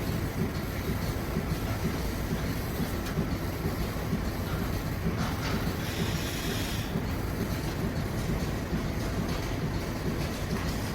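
Steady low mechanical rumble of machinery running in a milking robot room, with a brief brighter hiss or rattle about five to seven seconds in.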